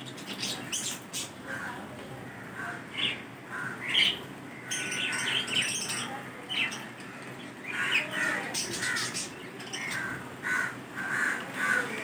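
A flock of budgerigars chattering: many short, irregular chirps and squawks overlapping, with occasional wing flutters as birds flit about the cage.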